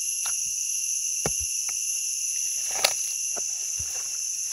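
Steady chorus of insects, a continuous high-pitched drone on several pitches at once. Over it come a few scattered short crackles of dry leaf litter being stepped on and handled.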